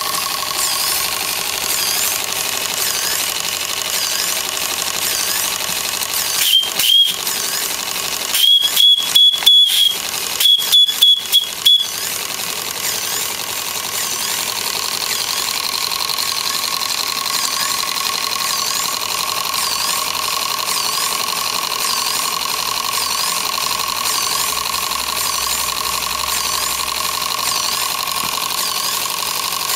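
Model steam plant running steadily: the small twin-cylinder steam engine and its boiler water pump, with steady tones and a repeating high chirp. About six seconds in comes a run of about eleven short, loud, high-pitched toots in three groups over some six seconds.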